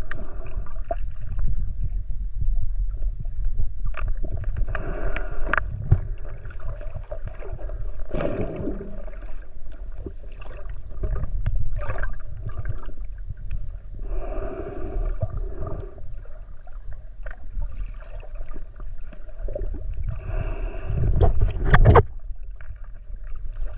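Muffled underwater sound picked up by a submerged camera: a steady low rumble of moving water, with gurgles every few seconds and scattered faint clicks.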